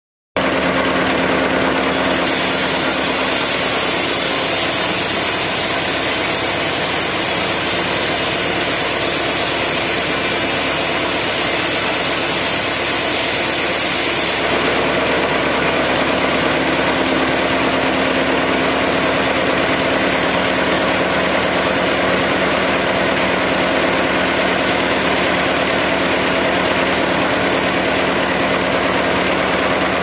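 Sawmill machinery running steadily and loudly. A high hiss over the first half stops about halfway through: the blade sawing through a teak log.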